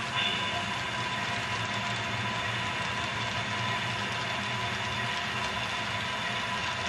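Model railroad freight cars rolling past on the track: a steady mechanical rattle of small wheels on the rails, with a thin high whine that comes in just after the start.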